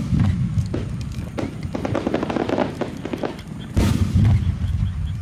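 Aerial firework shells bursting: the tail of a heavy boom at the start, a stretch of rapid crackling in the middle, and another heavy boom about four seconds in.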